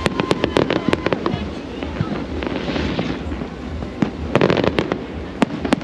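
New Year's Eve fireworks going off: rapid volleys of sharp bangs and crackles, one cluster at the start and another about four seconds in, with single bangs near the end.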